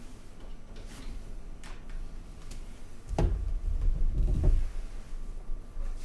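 Handling knocks with no bells sounding: a few light clicks, then two dull, bass-heavy thumps about three and four and a half seconds in.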